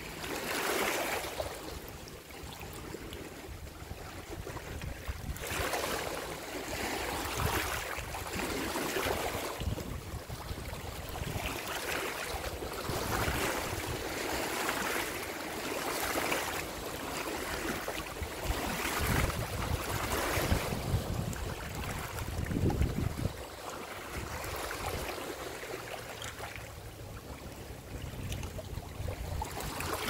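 Small waves lapping at the water's edge in repeated washes, one every second or two, over a low wind rumble on the microphone.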